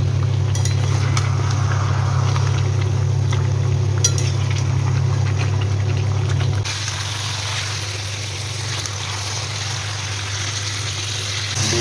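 Marinated chicken pieces frying in ghee and oil in a kadai: a steady sizzle with a few sharp crackles over a steady low hum. About two-thirds of the way through the sizzle turns brighter and more hissy.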